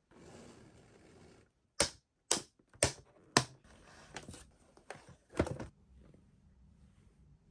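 A run of sharp clicks and taps, four loud ones about half a second apart followed by several softer ones and a last louder knock, as toys or their packaging are handled, after a second or so of faint rustling.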